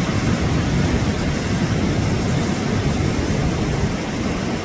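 Steady rushing noise of wind and surf at the sea's edge, heaviest in a low, uneven rumble.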